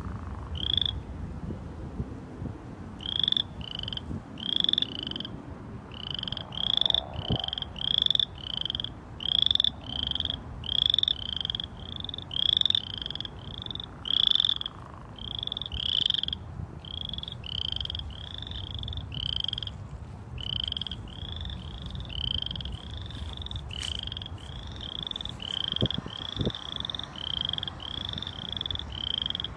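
A chorus of small frogs calling from a pond: short, high-pitched calls repeated about twice a second, one after another without pause, over a low background rumble.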